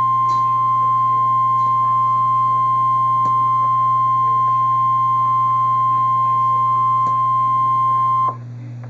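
NOAA Weather Radio 1050 Hz warning alarm tone: one steady, loud, high pure tone that cuts off suddenly near the end, leaving a low radio hum. The tone signals that a warning, here a tornado warning, is about to be broadcast.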